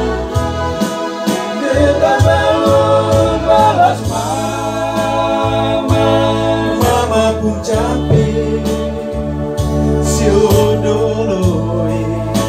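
A group of men singing together in harmony, accompanied by an electronic keyboard with a steady beat.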